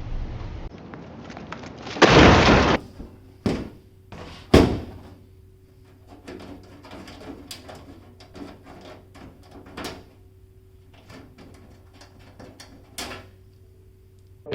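A desktop PC case being handled: a loud scrape about two seconds in, like its metal side panel sliding, then two sharp knocks and a run of small clicks and taps from parts and screws. A faint steady hum runs underneath.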